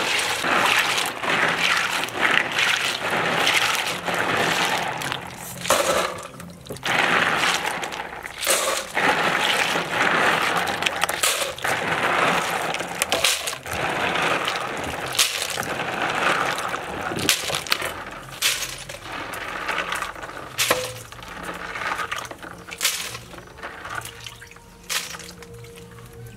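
Freshwater snails being washed by hand in a plastic basin of water: shells clattering and grinding against each other with water sloshing, and many sharp clicks of shell on shell. It grows quieter and sparser towards the end.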